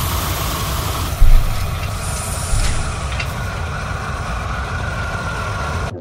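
Designed sci-fi spaceship sound effect: a dense, heavy engine rumble with a strong low end, with a loud hit about a second in and a smaller one about two and a half seconds in, cutting off suddenly at the end.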